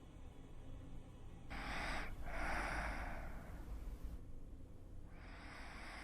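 A sleeping dog breathing slowly and noisily: three breaths, the second the longest.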